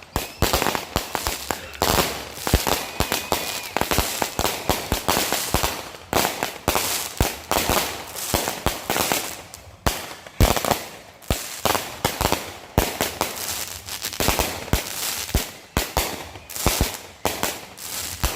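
Consumer fireworks going off in a rapid, continuous string of sharp bangs and crackles, several a second, with no pause.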